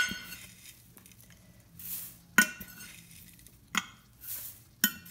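Rolled oats rustling as they are scooped and tipped into a stainless steel pan, twice. Three sharp clinks of a glass measuring cup and jar knocking, the loudest about halfway through.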